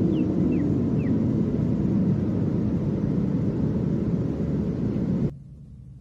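Tail of a synthesized biological-attack siren sound effect: a low rumbling drone, with a few short falling chirps in the first second. It cuts off abruptly about five seconds in, leaving a faint fading remnant.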